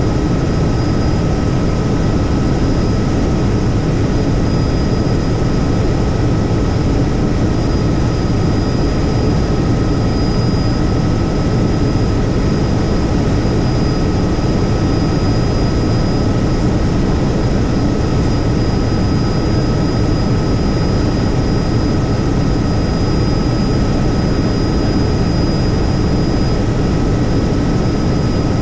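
Helicopter in steady flight: a loud, constant rotor and engine rumble with a steady high-pitched whine over it.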